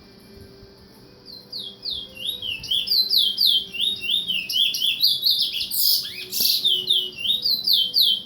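Pet bird chirping in a rapid run of short, downward-sliding notes, a few each second, starting about a second in, with one louder, harsher squawk around six seconds in.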